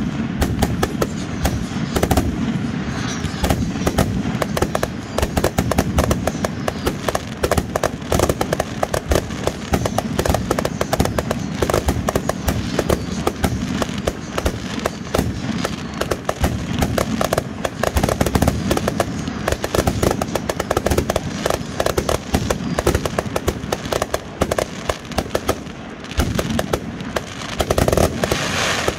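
Multi-shot consumer fireworks cake firing a long, rapid barrage of launches and aerial bursts, the shots coming fast and close together without a break, with a louder, denser flurry near the end.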